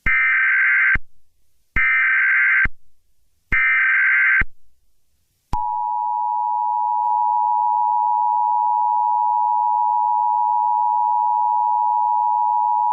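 Emergency Alert System tones: three one-second bursts of the SAME digital header, buzzy data squawks with short gaps between them, then the steady two-tone EAS attention signal starting about five and a half seconds in.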